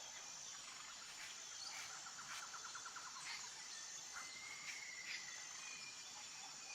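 Faint forest ambience: a steady high insect buzz with scattered short bird chirps, a rapid trill about two seconds in and a held whistle-like call near the middle.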